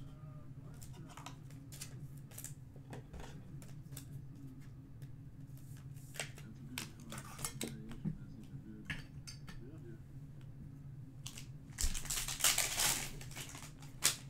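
Hard plastic card holders and trading cards clicking and tapping as they are handled, then a burst of crinkling about twelve seconds in from a foil card-pack wrapper.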